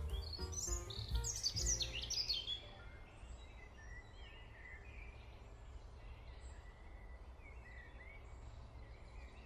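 Birds chirping over quiet background music: a loud flurry of quick rising and falling chirps in the first couple of seconds, then fainter, scattered chirps over a steady low hiss.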